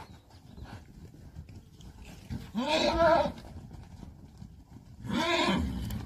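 A horse calls twice, each call loud, about a second long and arching up and then down in pitch, the first being the louder.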